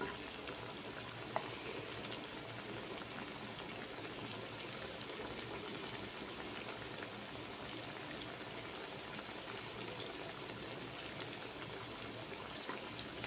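Potato cutlets frying in hot oil in a kadai: a steady sizzle with fine crackling, and one sharp click about a second and a half in.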